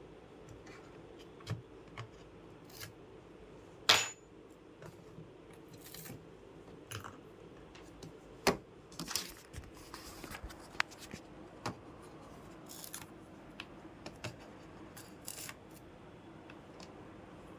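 Irregular clicks, taps and light scrapes of small hard computer parts being handled during a RAM installation, the loudest a sharp click about four seconds in, over a faint steady hum.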